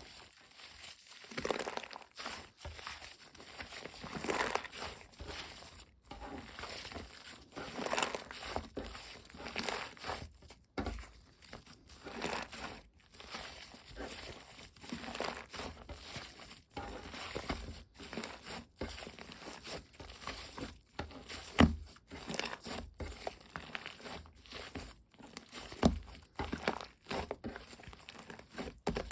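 Green slime with foam mixed in being squished and stretched by hand: irregular crinkly, crackling squelches with a few sharp pops.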